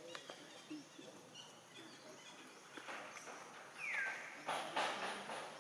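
Outdoor natural ambience with a few soft rustles and clicks and a single short call that falls in pitch about four seconds in.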